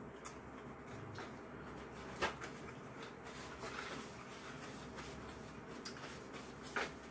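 Quiet mealtime sounds: a spoon clicking sharply against dishes three times, with soft handling noise in between.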